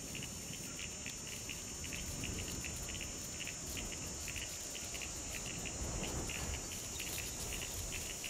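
Insects chirping: short high chirps repeating a few times a second, over a low rustling haze.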